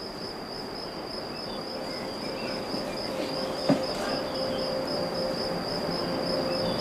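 Cricket chirping outdoors: a steady, evenly pulsing high chirp that goes on throughout, with one soft tap a little past halfway.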